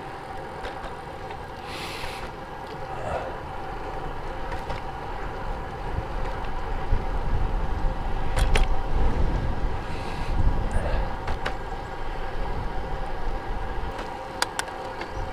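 Wind rushing over the microphone of a road bike in motion, with tyre and road noise beneath and a few light clicks. The rumble swells louder around the middle.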